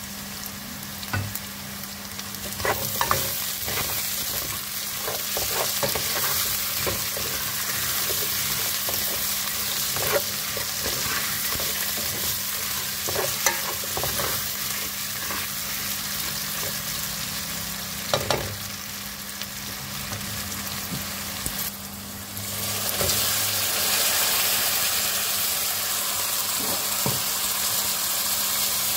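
Diced potatoes and onions frying in oil in a metal pot, sizzling steadily, with a spoon scraping and knocking against the pot as they are stirred. About two-thirds of the way through the sizzle turns louder, as lentils go into the pot.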